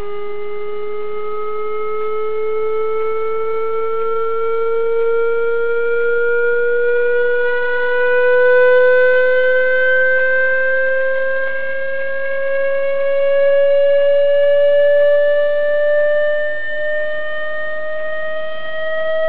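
Electronic test tone, buzzy with overtones, gliding slowly and evenly upward in pitch.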